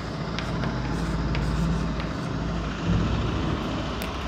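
A steady low rumble, like an engine running, with a few light taps of chalk on a blackboard as words are written.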